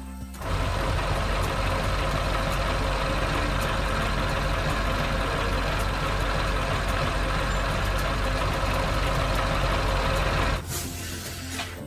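Heavy vehicle engine running steadily, dropping to a quieter low hum about ten and a half seconds in.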